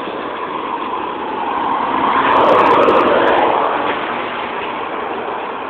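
A road vehicle passing on the street: a steady traffic hiss that swells to a peak about halfway through, then fades.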